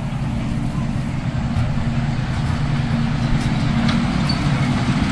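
7¼-inch gauge miniature railway locomotive's engine running steadily, growing gradually louder as the train approaches.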